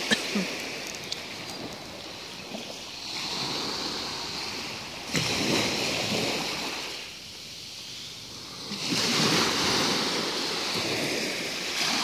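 Small Black Sea waves breaking and washing up a sandy shore, the surf rising and falling in rushes every few seconds.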